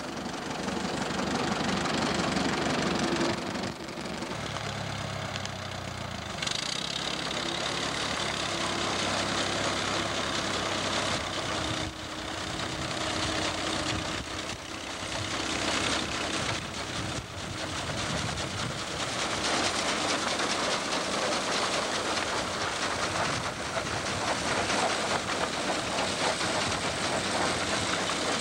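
Farm tractor engine running steadily as it pulls an antique grain binder cutting wheat, with the binder's moving parts clattering along with it.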